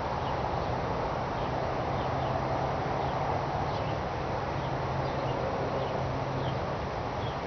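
Steady outdoor background noise with a low hum, with faint, short, high bird chirps scattered through it.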